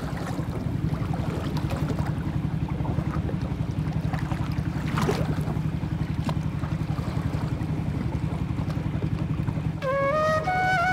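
Engine of a wooden country boat running steadily underway, a low drone with a fast even pulse. About a second before the end, music comes in with a few rising tones.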